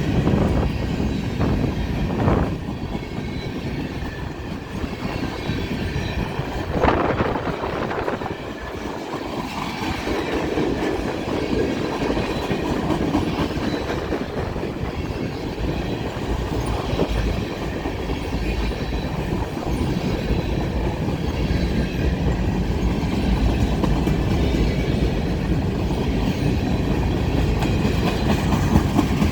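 Freight train rolling past at track side, its wheels rumbling and clacking over the rail joints, with a few sharp clanks early on and about seven seconds in.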